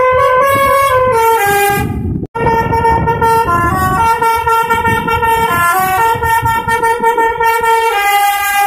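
Indonesian bus 'telolet' musical air horn playing a tune of stepped notes over a low rumble. It breaks off abruptly about two seconds in, then carries on with more notes.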